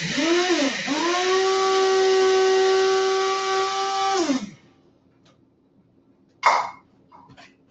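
Small electric coffee grinder grinding roasted coriander, cumin and caraway seeds: the motor whines in short pulses, then runs steadily for about three seconds before winding down about four and a half seconds in. A few short knocks follow, the loudest about six and a half seconds in.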